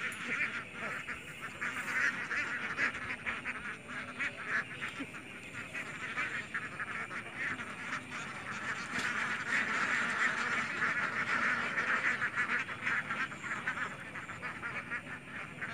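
A dense chorus of many animals calling at once, a constant run of short quacking calls with no pause, a little louder past the middle.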